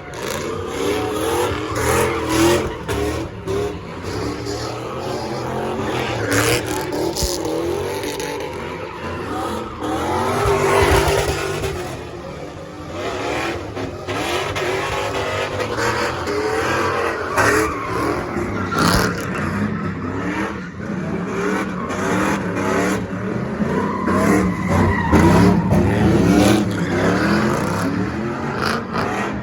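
Car engine revving hard, rising and falling over and over, with tyres squealing as the car spins in circles.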